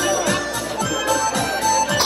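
Dance music with a steady kick-drum beat about twice a second under a held melody.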